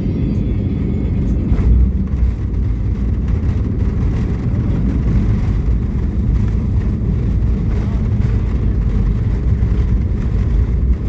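Steady loud low rumble inside an airliner's cabin as the plane rolls on the ground after landing: engine noise and wheel rumble, with no clear change in pitch.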